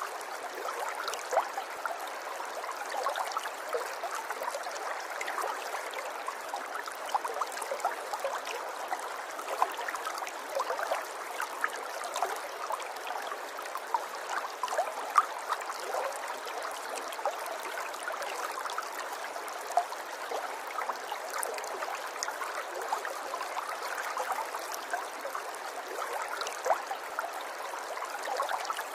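River water flowing and babbling steadily, with many small splashes and gurgles over it.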